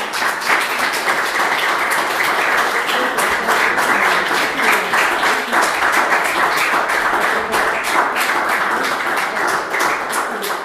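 Small audience applauding: a dense patter of hand claps that thins out near the end.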